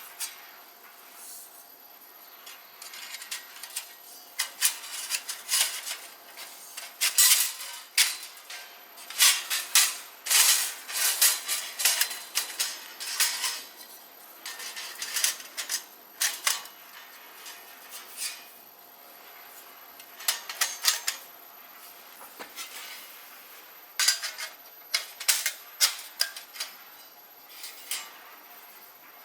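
Stainless steel plates and parts of a small flat-pack barbecue stove clinking and clattering, metal on metal, in irregular light knocks and rattles. There is a quieter lull about two-thirds through.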